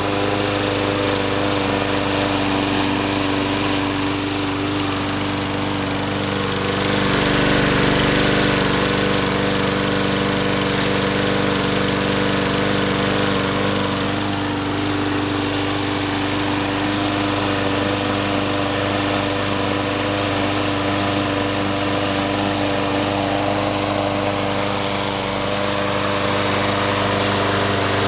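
Troy-Bilt 21-inch push mower's 6.5 HP Briggs & Stratton single-cylinder engine running steadily just after starting. It gets louder for several seconds about a quarter of the way in, then settles back to an even running note.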